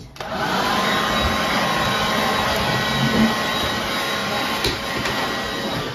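Electric blow dryer running, a loud steady rush of air with a whine in it, drying a dog's wet coat after a bath. It starts abruptly and cuts off near the end.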